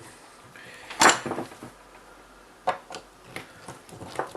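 Hard clacks and knocks of rifle parts and tools being handled and set down on a desk: one loud clack about a second in, then a few lighter knocks.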